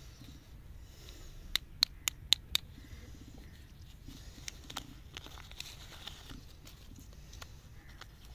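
Printed paper wrapper of a stick lollipop being torn open and peeled off by hand: five sharp crackles in quick succession about a second and a half in, then softer crinkling and rustling with a few small clicks.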